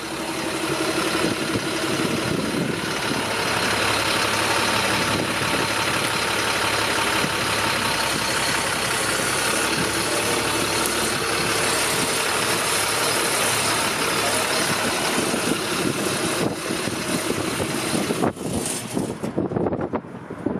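Utility truck's engine idling steadily, with the sound becoming more uneven near the end.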